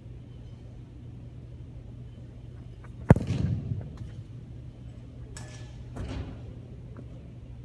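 A single sharp smack of a kicker's foot striking a football off a tee about three seconds in, echoing through the empty arena, followed a couple of seconds later by two fainter thuds. A steady low hum runs underneath.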